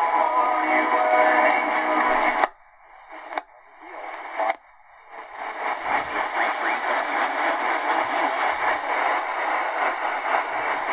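XHData D-808 portable radio playing narrow-band AM broadcast audio through its speaker: a station's music, which cuts off sharply about two and a half seconds in as the radio is retuned. Faint clicks follow during a short gap, then from about halfway a weak medium-wave station comes in buried under steady hiss and static.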